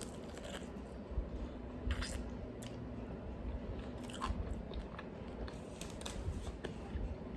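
A person chewing and biting into food close to the microphone, with scattered short crunches and clicks, while eating a mukbang meal of chicken wings and fries.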